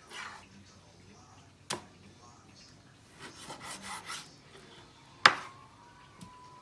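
Chef's knife cutting through spoonbill fish on a wooden cutting board. The blade knocks sharply on the board twice, once just under two seconds in and once, loudest, about five seconds in, with softer scraping and slicing in between.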